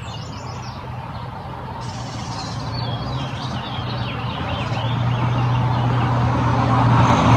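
A motor vehicle's engine hums steadily and grows louder as it approaches, with birds chirping faintly.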